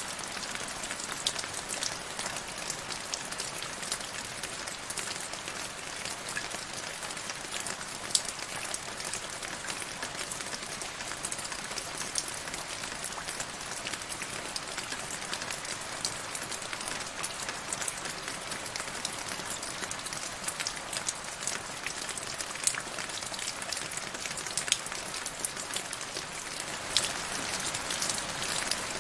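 Steady rain falling into a shallow puddle over grass, a constant hiss with many small, sharp drop splashes scattered through it.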